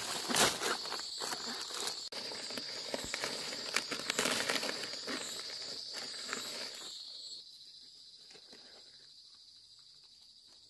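Large palm leaves rustling and crackling as they are handled and pressed into a pile, over a steady high insect chirring. About seven seconds in the rustling stops and only the fainter insect chirring remains.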